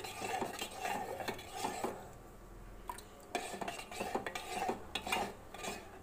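A metal spoon stirring thick grain porridge in a metal pot, scraping the bottom and clinking against the sides to keep it from sticking as it thickens. There is a short lull about two seconds in.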